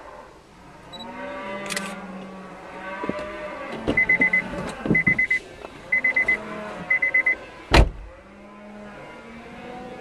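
Cattle mooing repeatedly as the herd moves along. About four seconds in come four loud groups of rapid high beeps, one group a second, and a single sharp knock follows just before the last calls.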